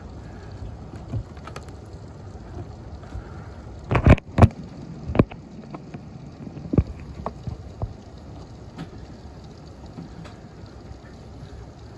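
Steady rain hissing during a thunderstorm, with a quick cluster of loud sharp taps about four seconds in and a few fainter taps scattered after.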